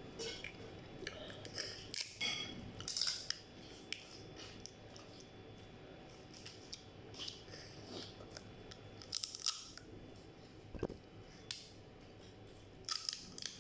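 Crab shells being cracked and picked apart by hand: a scatter of short, crisp cracks and clicks, bunched in a few bursts.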